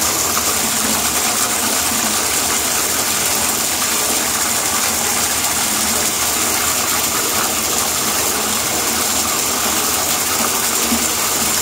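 Bathtub tap running steadily into the tub.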